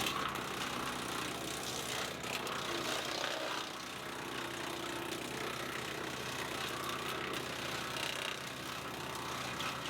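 Woodland Mills wood chipper running steadily at speed: a constant mechanical drone under a broad hiss, with a few faint knocks.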